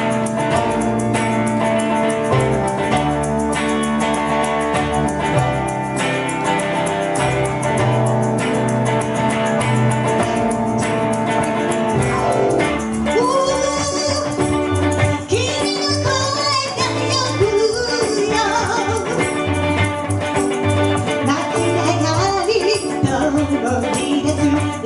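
A song played live: a guitar-led instrumental intro over a bass line and light, steady percussion, then a voice comes in singing about halfway through.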